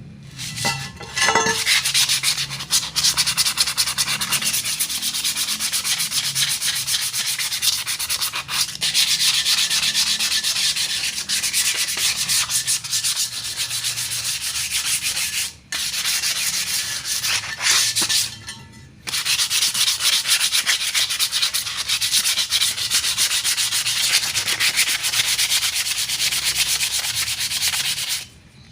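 Hand sanding of a motorcycle wheel rim, a steady run of quick scraping strokes that stops briefly twice midway and again near the end, as the surface is prepared for repainting.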